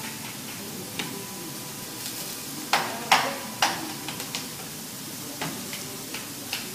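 Food sizzling on a teppanyaki griddle while metal spatulas clank and scrape against the hot iron plate. Three loud, ringing clanks come in quick succession a little under three seconds in, with lighter taps around them.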